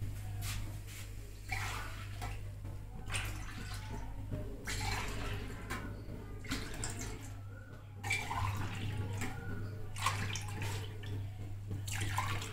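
Lassi poured back and forth between a steel jug and a steel tumbler to mix it, splashing in short pours about every second or so, over a steady low hum.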